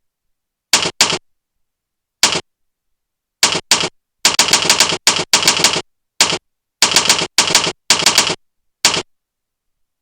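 Typewriter key-strike sound effects from keyboard-sound software, fired as keys are pressed: short, irregular runs of sharp clicks with dead silence between, a longer flurry around the middle, stopping about a second before the end.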